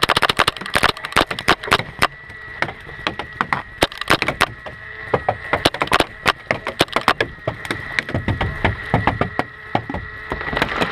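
Paintball markers firing: a volley of sharp pops at the start, then scattered shots and quick strings of shots throughout, with balls cracking against bunkers.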